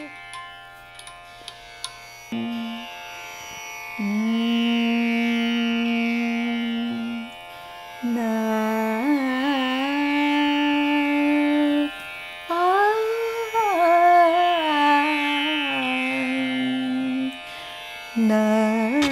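A woman singing a slow Indian devotional song in long held notes with sliding, wavering ornaments, in four phrases with short pauses between them, over a steady drone.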